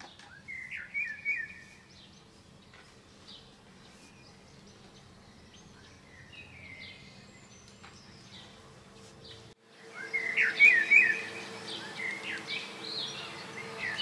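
Male common blackbird singing in short repeated phrases, sparser in the middle and louder and denser over the last few seconds after a brief cut-out. A faint steady hum lies beneath.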